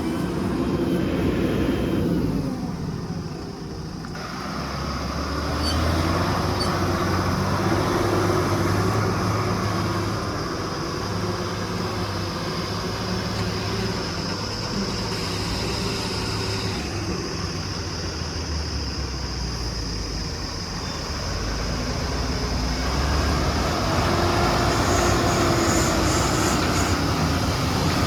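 Heavy diesel engine of a backhoe loader running and working, its revs rising and falling under load, with a short lull a few seconds in and louder stretches about a fifth of the way in and near the end.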